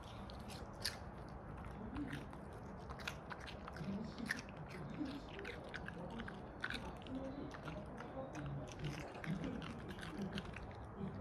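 Senior dog crunching and chewing broccoli: many short, sharp, irregular crunches.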